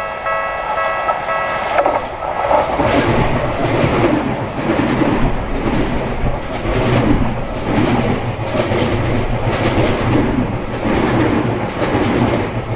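Tokyu Toyoko Line train passing over a level crossing, its wheels clattering over the rail joints in a steady rhythm. The crossing's warning bell rings for about the first two seconds before the train covers it.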